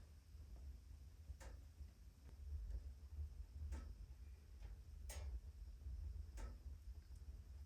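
A few faint, sharp clicks, spaced irregularly a second or more apart, over a low steady rumble.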